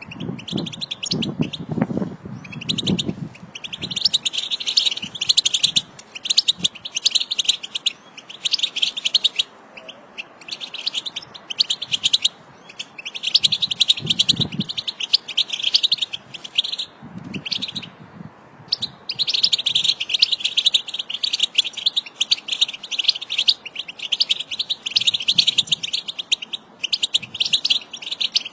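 A flock of European goldfinches twittering: rapid high-pitched chatter in runs of a few seconds with short gaps between them. A few low, dull sounds lie under it in the first three seconds and again around the middle.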